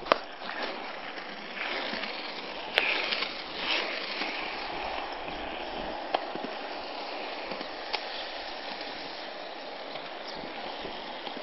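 Plastic Penny-style cruiser skateboard rolling on concrete pavement: a steady rolling rumble of the wheels, with a few sharp clicks scattered through it.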